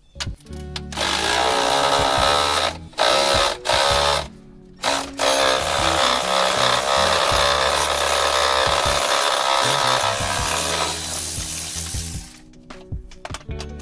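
Power tool spinning a 5/8-inch socket on an extension to run off a golf cart's battery hold-down nuts, in short runs at first and then one long run that stops near the end. Background music plays underneath.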